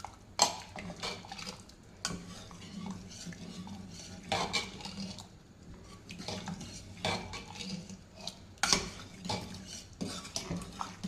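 A metal spoon stirring and scraping in a cooking pot, with irregular clinks against the metal.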